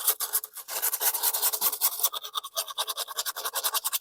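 Coarse sandpaper rubbed by hand over rust on a steel mower deck, in fast, even back-and-forth scratching strokes.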